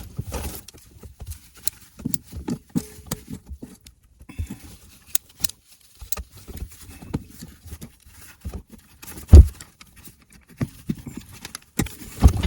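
Irregular clicks, taps and knocks of hand tools working at a corroded chain plate screw on a sailboat, with one loud thump about nine seconds in.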